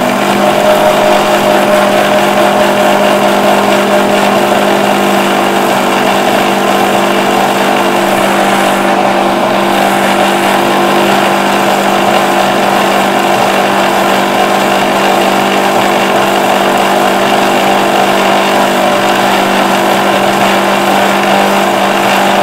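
Electric mixer grinder running steadily at full speed, its motor whining as the blades blend oil, vinegar and seasonings into a homemade mayonnaise spread that is turning creamy.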